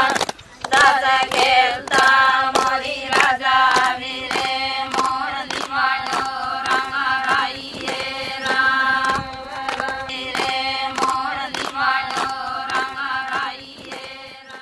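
A song: a singing voice with ornamented melody over a held drone note and a regular percussion beat, fading out near the end.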